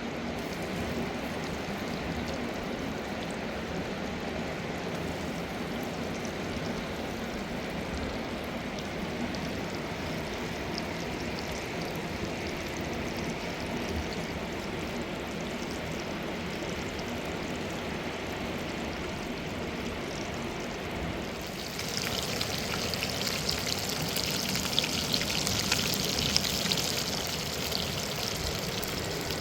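Mountain river water rushing and splashing steadily. About 21 seconds in it grows louder and hissier, with small crackling spatters for a few seconds.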